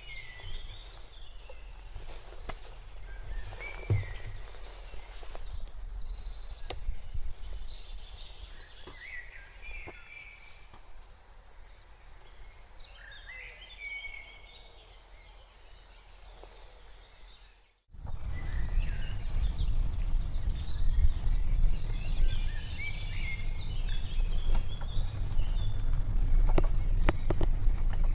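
Songbirds chirping and singing, with a quiet background hush. About two-thirds of the way through the sound cuts out for a moment, and after that a loud, steady low rumble of wind on the microphone runs under the birdsong.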